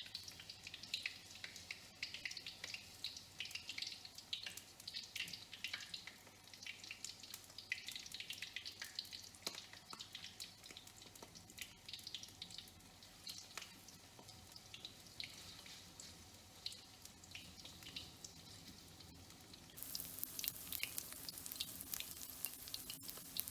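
Vegetable fritters deep-frying in hot oil in a wok, a dense crackling and popping sizzle. About 20 seconds in the sizzle turns louder and brighter.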